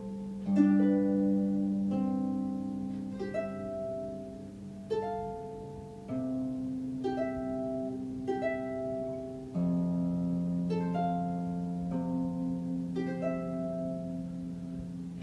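Solo harp music: an unhurried plucked melody over low notes that ring on for several seconds.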